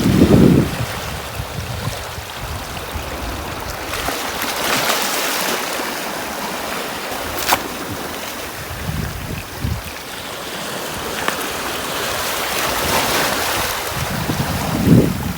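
Surf breaking and washing up a beach: a steady hiss of water that swells from about four seconds in, with low wind rumble on the microphone at the start and again near the end.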